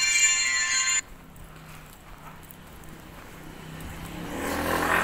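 A loud, high-pitched tone sounds for about a second, starting and stopping abruptly. Then a motor vehicle approaches and passes close near the end, its noise swelling and then falling away.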